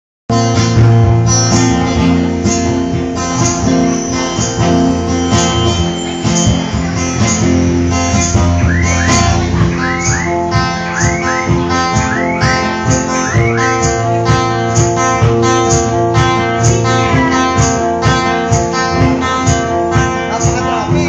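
Live band music with guitar playing over a steady beat, without words.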